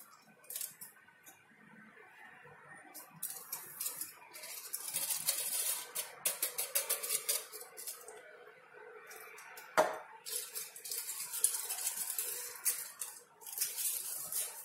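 Small glass lab vessels being handled: light clinks and rasping scrapes of glass in two runs, with one sharp knock about ten seconds in.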